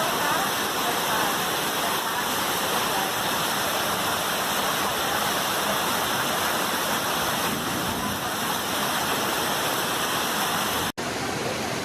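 Heavy tropical downpour with rushing storm water: a steady, loud roar of rain and running water, with a sudden brief break about eleven seconds in where the recording cuts.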